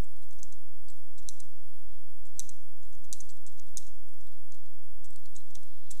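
Computer keyboard being typed on: a run of irregularly spaced key clicks as a terminal command is entered.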